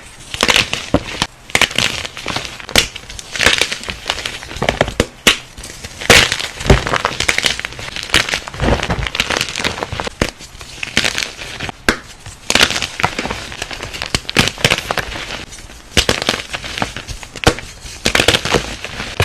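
Something crunchy being crushed: a dense, irregular run of sharp crackles and crunches.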